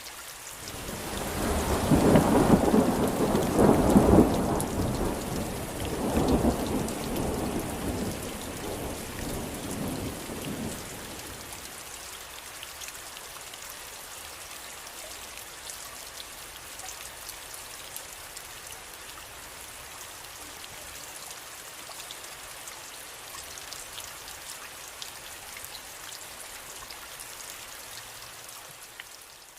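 Steady rain falling, with a long roll of thunder starting about a second in, loudest a few seconds in and dying away over roughly ten seconds. The rain then goes on evenly and fades out near the end.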